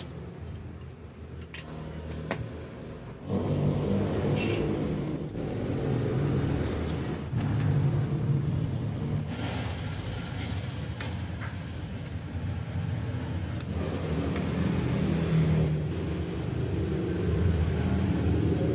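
A low, steady engine-like rumble that becomes louder about three seconds in, with a few light clicks as parts are handled.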